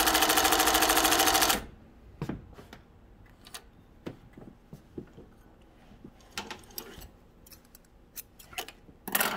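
Speedway SW-1341VS cylinder-bed, compound-feed industrial sewing machine stitching through quilt batting at a steady fast rate, then stopping about a second and a half in. Faint clicks and rustles of the batting being handled follow, with a short louder rustle near the end.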